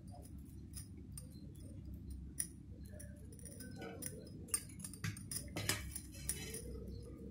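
Faint, scattered small clicks and taps of hands handling brinjals and masala paste against steel bowls, as the slit brinjals are stuffed with paste.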